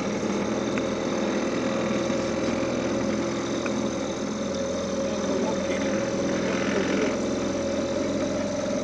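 Small outboard motor pushing a dinghy tender along, running steadily at an even pitch.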